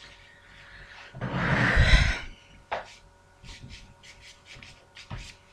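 Paper napkin being rubbed and handled: one loud, rough rub lasting about a second, followed by a few soft crinkles and clicks.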